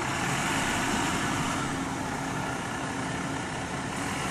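Steady traffic noise from a city street, with a faint steady hum in the first few seconds.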